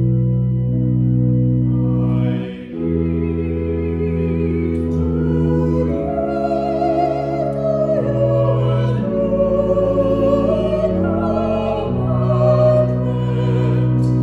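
Church organ holding sustained chords, with a solo classical voice singing over it with a wide vibrato; the voice comes in about two seconds in.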